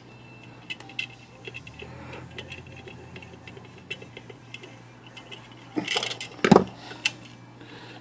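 Small metallic clicks and clinks of needle-nose pliers gripping and working the tab of a coiled steel typewriter mainspring, which is not bending. A louder clatter comes about six seconds in.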